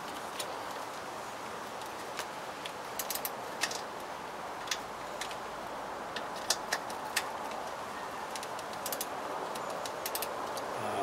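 Irregular sharp metallic clicks and taps of a ratchet and hand tools on the fuel-rail fittings of a stopped engine, in small clusters over a steady background hiss.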